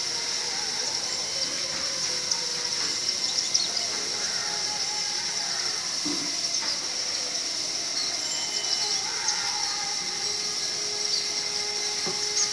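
Sparrows chirping in short, scattered calls over a steady high-pitched hiss.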